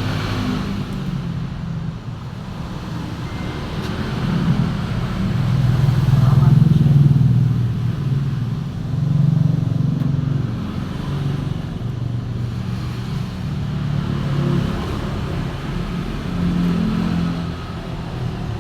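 A motor vehicle engine running, its low hum swelling louder several times, most strongly about seven seconds in.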